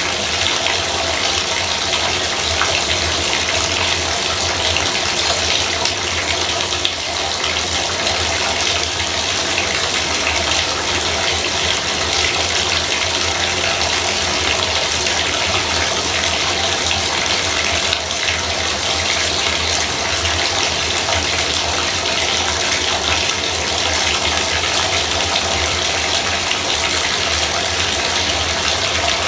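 Bathtub faucet running steadily, a continuous even rush of water.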